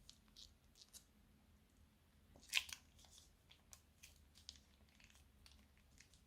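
Faint, scattered crisp crackles and small clicks from crunchy slime and plastic piping bags being handled, with one louder crackle about two and a half seconds in.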